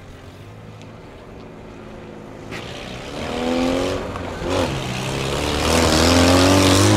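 Motor vehicles accelerating away over a level crossing, engine pitch rising as they speed up: one passes close by about four and a half seconds in, and a second, louder one builds toward the end.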